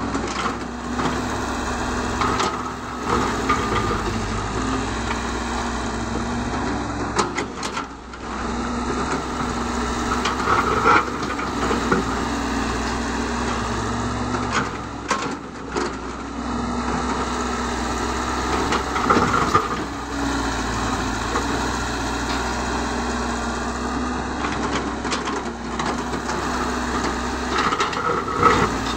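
Caterpillar 312 hydraulic excavator's diesel engine running steadily under digging load, with a high hydraulic whine that comes and goes as the boom and bucket work. Every few seconds there are sharp knocks and scrapes of the steel bucket against rock and soil.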